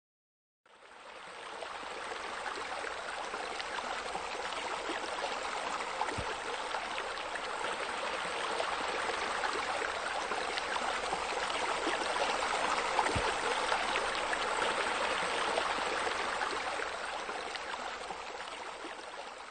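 Steady splashing of water spilling from sheer-descent waterfalls into a pool, a continuous water sound that fades in just after the start and tapers off near the end.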